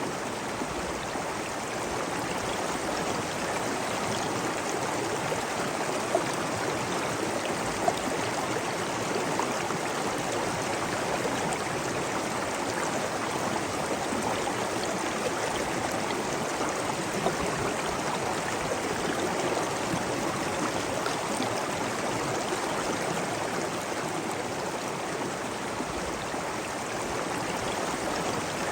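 Steady rushing of flowing and falling water, an even, unbroken water noise, with a few brief louder spots in the first half.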